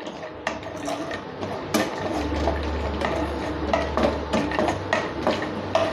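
Peanuts being stir-roasted in a little oil in a nonstick frying pan with a wooden spatula: irregular clicks and scrapes of the spatula and nuts against the pan. A low hum comes in about two seconds in.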